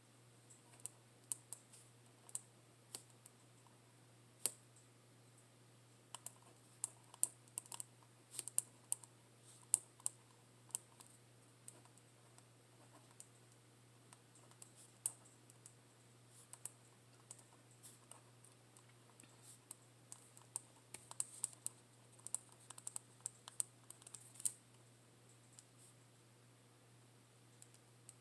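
Scattered light clicks and taps of someone writing out a journal entry, coming in irregular bunches with pauses between, over a faint steady low hum.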